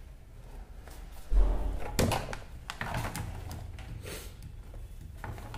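Plastic knocks and thuds as a Karcher K2 pressure washer's motor-and-pump unit is handled and set down into its plastic housing. The loudest is a thud about a second and a half in, followed by a sharp knock and a few lighter knocks.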